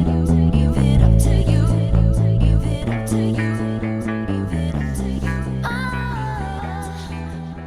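Background music with bass and guitar, a sliding lead line coming in about two-thirds of the way through, fading out near the end.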